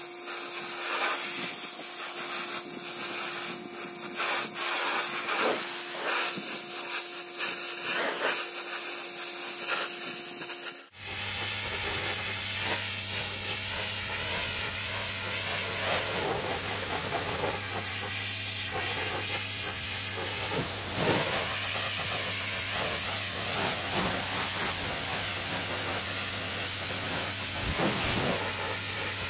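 Pressure washer lance jetting high-pressure water onto timber decking: a steady hiss of spray with a hum beneath. About eleven seconds in it changes suddenly to a louder hiss over a deeper hum.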